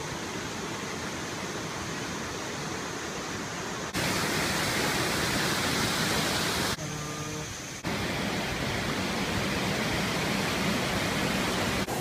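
Waterfall water rushing over rock cascades: a steady rushing noise that gets louder about four seconds in, with a brief quieter dip near the seven-second mark.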